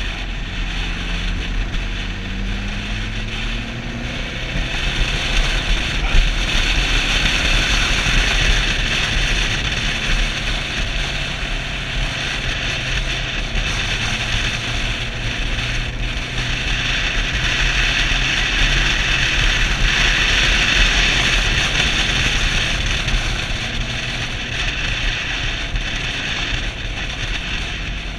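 Suzuki DR650's single-cylinder four-stroke engine under way, its note rising in pitch over the first few seconds as the bike accelerates, under heavy wind rush on the microphone that swells and eases twice with speed.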